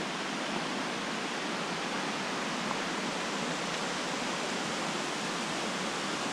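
Shallow river running over stones: a steady, even rush of water.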